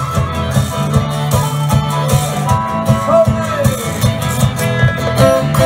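Live blues band playing an instrumental passage: guitars over a steady drum beat, with a lead line that bends in pitch about halfway through.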